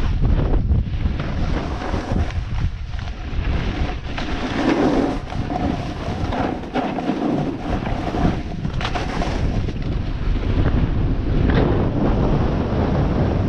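Wind buffeting the microphone on a fast downhill run on snow: a steady low rumble, with the hiss and scrape of edges sliding over packed snow underneath.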